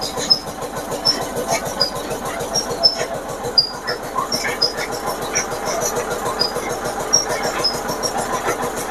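Mustard oil expeller (screw-press kolhu) running steadily while it presses mustard seed, an even fast mechanical chatter.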